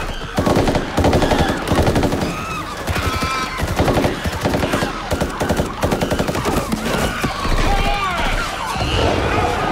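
Rapid automatic rifle fire from several soldiers at once, long bursts of shots packed close together, in a film battle soundtrack.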